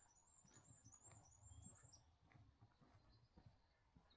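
Near silence, with a faint series of very high, thin chirps from a small animal stepping upward over the first two seconds, and a faint low rustle.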